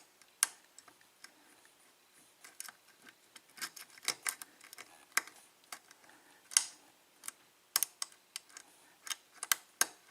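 Lock pick clicking and tapping against the pin stacks inside a Schlage 5-pin lock cylinder during single-pin picking, with small irregular metallic clicks as the pins are lifted and set.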